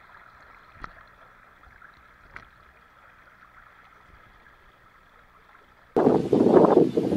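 Muffled, faint water sloshing around a person wading chest-deep through muddy water, with a couple of small clicks. About six seconds in, a much louder rough rushing noise cuts in suddenly.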